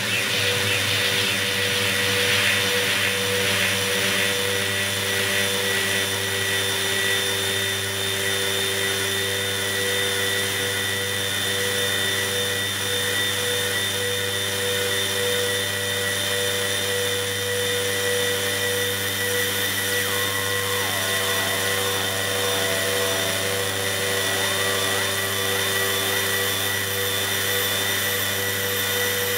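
Experimental electronic noise music: a steady drone of several held hum tones, low and high, over a constant hiss. A grainy hiss is stronger in the first few seconds and fades, and from about two-thirds of the way through short sliding tones flicker in the middle register.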